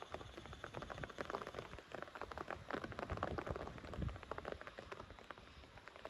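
Raindrops striking a hard surface as a dense, irregular run of sharp ticks over a low rumble.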